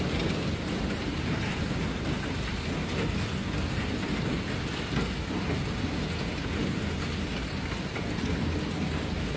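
Heavy rain falling steadily, with a low continuous rumble of storm underneath.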